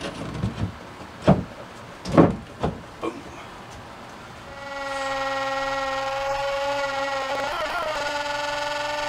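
A few knocks and taps as a sink is set and shifted in a plywood countertop cutout. About halfway in, a router starts a steady high whine as it trims the edge of a Corian countertop. Its pitch wavers and dips briefly, then rises near the end.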